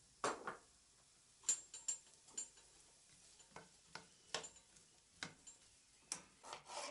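Black plastic slotted spatula stirring chopped onion in oil in a non-stick frying pan, making faint, irregular light clicks and scrapes against the pan, about a dozen of them.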